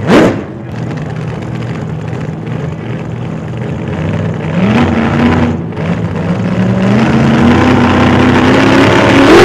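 A sharp, loud sound right at the start, then a pickup truck engine accelerating, its pitch rising in steps as it gathers speed and growing louder toward the end.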